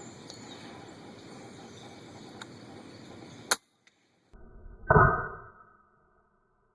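Steady wind noise, broken by a sharp click. About five seconds in, an FX Impact Mk2 .22 PCP air rifle fires once: a sharp report with a short ringing tail.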